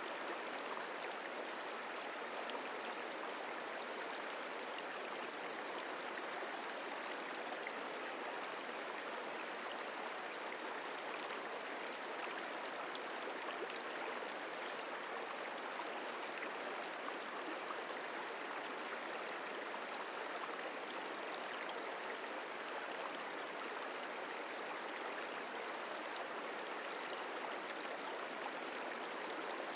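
Merced River flowing: a steady rush of moving water.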